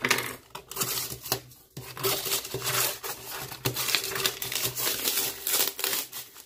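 Knife cutting and scraping through packing tape on a cardboard box, with the tape tearing and the box crinkling. Irregular rasping strokes, a few at first, then nearly continuous from about two seconds in.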